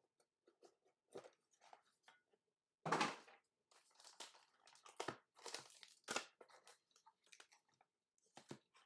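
A sealed trading card box being opened by hand: plastic wrapping torn and crinkled, with cardboard rustling, in faint irregular bursts. The loudest come about three seconds in and again around six seconds.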